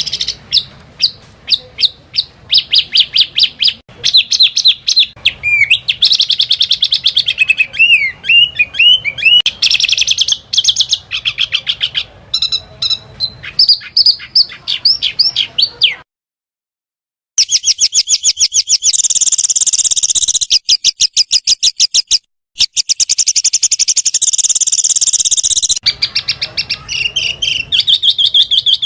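Small songbirds singing rapid, loud 'tembakan' calls: fast strings of repeated high chirps and trills. The recording cuts abruptly from one bird's clip to the next, with a silent gap of about a second midway.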